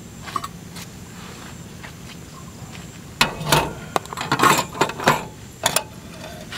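Small steel cups, a kettle and dishes being set down and shuffled on a metal slatted camp table: a quiet stretch, then a run of clinks and knocks for about three seconds in the second half.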